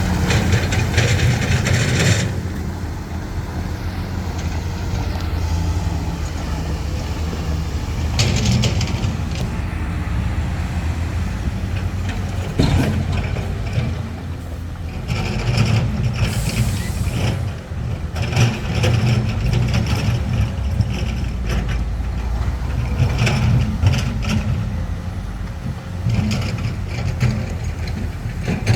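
Heavy diesel earthmoving machinery, dump trucks and excavators, running steadily under load, with repeated metallic clanks and knocks through it and a brief hiss about sixteen seconds in.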